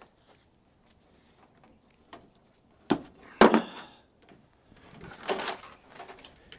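Handling noises from working with wires by hand: a sharp knock about three seconds in, a louder rustle just after it, and another rustle about five seconds in.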